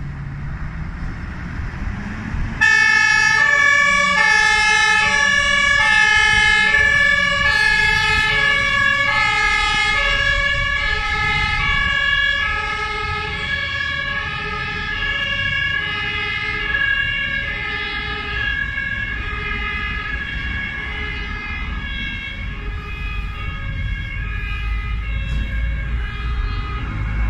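German fire engine's two-tone siren (Martinshorn) switching on about two and a half seconds in, then sounding its alternating high and low notes steadily over the running truck engine, signalling a fire engine on an emergency run.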